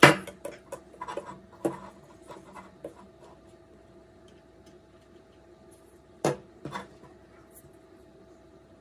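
Handling clatter of plastic LED light bulbs and a plastic indicator screwdriver being picked up, knocked together and set down on a wooden tabletop: a quick run of clicks and knocks in the first three seconds, then two more knocks a little past six seconds, over a faint steady hum.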